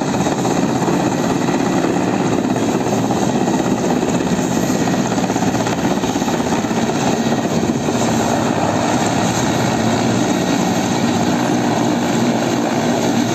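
Military transport helicopter hovering low and descending to land. Its rotor and turbine engines run steadily throughout, with a fast beat of the blades.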